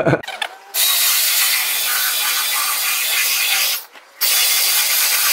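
Handheld electric belt sander running steadily on a solid-wood cabinet, with a brief break just before four seconds in.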